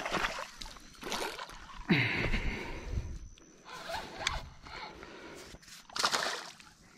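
Water splashing in several short bursts, a second or two apart, as a hooked fish thrashes at the surface.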